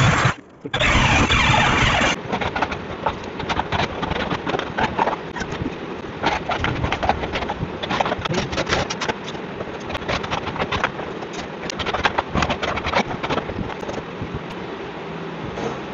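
An electric drill bores into the edge of a mahogany door for about the first two seconds, its motor pitch gliding as it stops briefly and starts again. Then a hammer taps a chisel in many quick, irregular strikes, cutting out the wood between the drilled holes for the lock's mortise.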